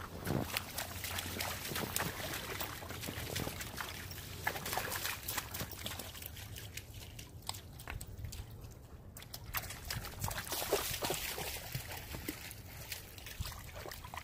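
Dogs wading in shallow, muddy water: steady sloshing and trickling with many small splashes.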